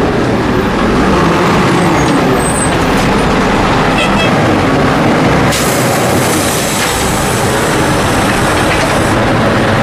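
Garbage truck sound: a loud, steady truck engine and machinery noise. A hiss joins about halfway through, and the sound cuts off suddenly at the end.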